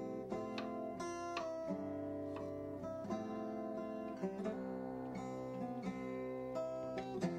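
Background music: acoustic guitar playing plucked and strummed notes.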